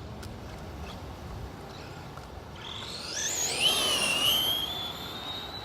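Traxxas Rustler VXL RC stadium truck's Velineon 3500 kV brushless motor whining under full throttle on a speed run. The high-pitched whine rises in pitch from about two and a half seconds in, is loudest around four seconds, then holds pitch as it fades.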